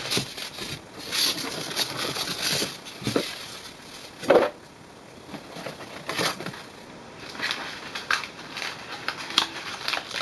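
Foam packing inserts being pulled out of a cardboard printer box: irregular scraping and rubbing of foam against cardboard, loudest about four seconds in, with cardboard packing handled near the end.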